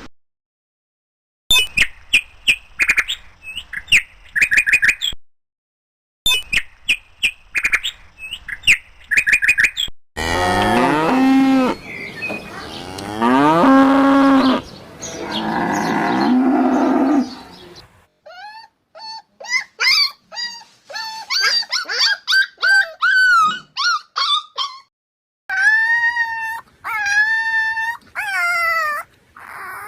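Cattle mooing: several long, low calls that fall in pitch, in the middle of a run of other animal calls. Before them come quick, short, high-pitched calls in two runs, and after them a stretch of high, wavering chirping cries.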